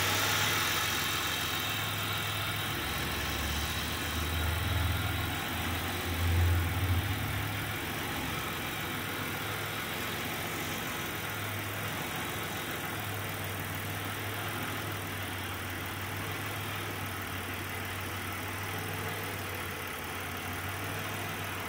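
A 2004 Buick LeSabre's 3.8-litre V6 idling steadily, heard from inside the cabin, swelling briefly a few times about four to seven seconds in. It is running on a dead mass airflow sensor that reads 0 grams per second, with long-term fuel trims at negative 25.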